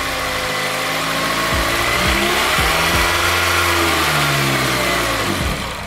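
Honda K20 four-cylinder engine in an EK Civic revved up and let back down to idle. The belt screech that was blamed on a faulty alternator is not heard.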